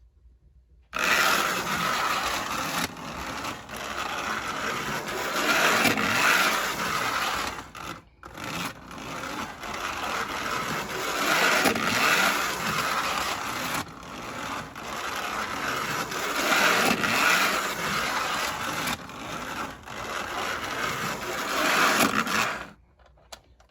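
Lionel No. 50 gang car running fast on battery power: its small motor whirring and its wheels rumbling and scraping along the tinplate track, swelling and fading about every five to six seconds. The sound cuts out briefly about eight seconds in and stops near the end.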